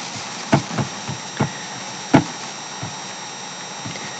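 A handful of short, sharp clicks at irregular intervals, typical of a computer mouse being clicked, over a steady background hiss.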